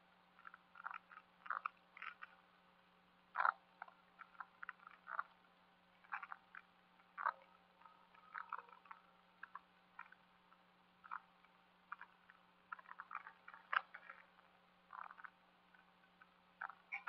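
Frogs calling at dusk: short, irregular croaks, several a second, over a faint steady hum.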